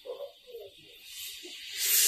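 Steel spatula scraping the dry-fried spice masala in an aluminium pressure cooker. Then water is poured in from a jug onto the hot spices and sizzles, a hiss that swells about a second in and is loudest near the end.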